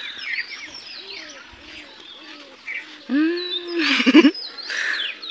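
Small birds chirping in the background. About three seconds in, a much louder drawn-out call whose pitch rises and falls over about a second, followed by a short broken cry.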